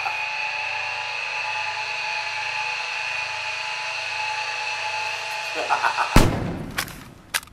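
A steady high drone, broken about five and a half seconds in by a man's short burst of laughter, then a single loud pistol shot that rings out, with two sharp clicks after it before the sound cuts off.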